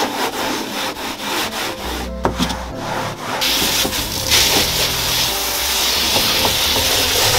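Sponge scourer rubbed back and forth over a boat's floor in quick scrubbing strokes. About three and a half seconds in, a garden hose starts spraying water over the floor with a steady hiss.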